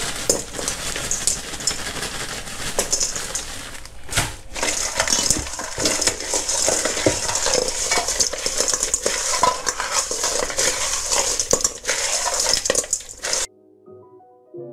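Ice cubes clattering and grinding against a stainless steel bowl as raw shrimp, salt and ice are mixed together by hand, a salt-and-ice wash to firm the shrimp. Near the end it cuts off abruptly and soft piano music begins.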